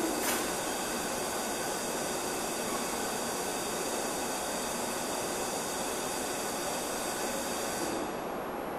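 Steady hiss of background noise with a faint click just after the start; the higher part of the hiss stops about eight seconds in.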